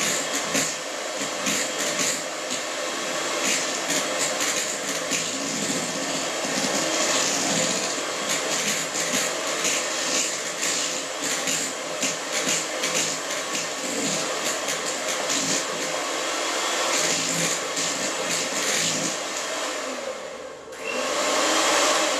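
Electric hand mixer whipping cream in a bowl: a steady motor whir with frequent rapid clicks. It dips about 20 s in, then surges back louder for a second or two near the end.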